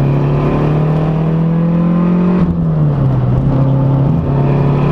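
Big-turbo Saab 9-5's 2.3-litre turbocharged four-cylinder heard from inside the cabin under hard acceleration. Its note climbs slowly for about two and a half seconds, falls back lower, then steps up again near the end.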